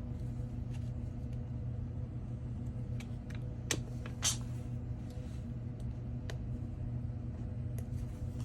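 Small clicks and taps of hand tools working at a phone's glass back panel while prying it off, over a steady low hum. Two sharper clicks about four seconds in.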